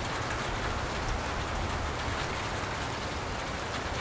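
Steady, even hiss of outdoor background noise with no distinct events.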